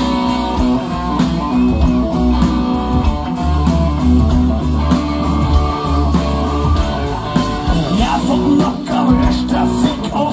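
Rock band playing live: electric guitars, bass and drums with a steady beat, and the singer's voice joining in near the end.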